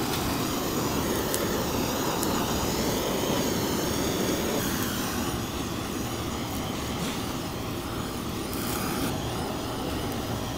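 Handheld butane gas torch burning with a steady rushing hiss as its flame is played over braised pig's trotters.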